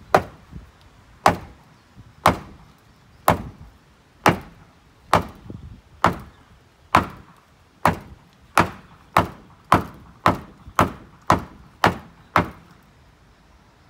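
A shoe with a wine bottle stuck in it, struck heel-first against a wooden stair post over and over: about seventeen sharp knocks, roughly one a second at first and quickening to about two a second in the second half, stopping over a second before the end. This is the shoe trick for driving a cork out of a wine bottle by hitting its base against a hard surface.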